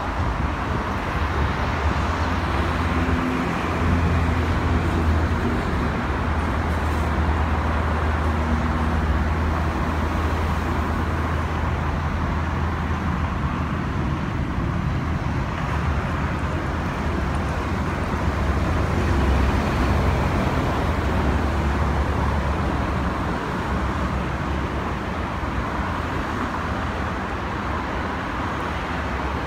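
Steady low rumble of an airliner's engines as the aircraft flies past, easing off in the last few seconds.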